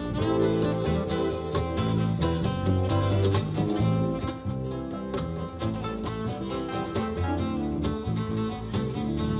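Small live band playing an upbeat tune led by fiddle and acoustic guitar, with a steady beat.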